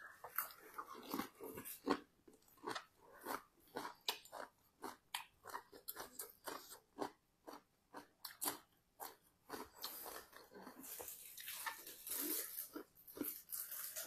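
Close chewing and crunching of crisp lettuce and seafood papaya salad: a steady run of short wet bites about three a second, giving way to a longer hissing noise about ten seconds in.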